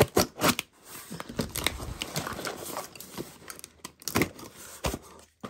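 A utility knife slicing through packing tape on a cardboard box: scraping and tape crackling, broken by sharp clicks and knocks, the loudest near the start and again about four seconds in.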